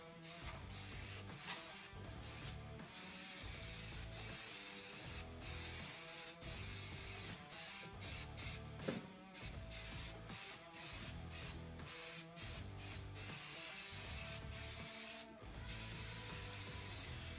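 Aerosol spray can hissing in repeated bursts, some short and some held for a few seconds, as a coating is sprayed onto the car.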